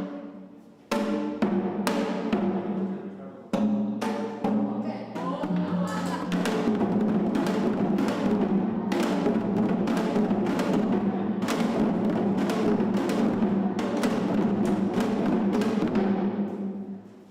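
Janggu (Korean hourglass drum): a few separate ringing strokes, then from about five seconds a long, fast, continuous roll that evokes falling rain, fading away near the end.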